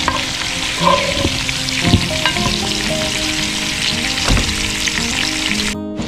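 Ground turkey sausage sizzling in oil and butter in a cast-iron Dutch oven over a wood fire, with a spatula scraping and knocking in the pot a few times as the meat is broken apart. The sizzle cuts off abruptly just before the end.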